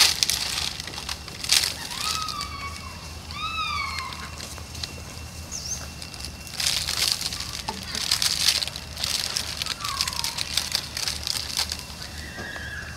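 Young macaques giving short, arched squeaky calls, two close together about two and three and a half seconds in and a falling one near ten seconds, over repeated bursts of rustling and scraping.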